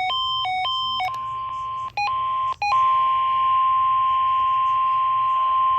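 NOAA Weather Radio emergency alert tones. About a second of rapidly alternating electronic beeps, with two brief cutouts, gives way less than three seconds in to the steady 1050 Hz warning alarm tone, one long unbroken tone that signals a warning is about to be read.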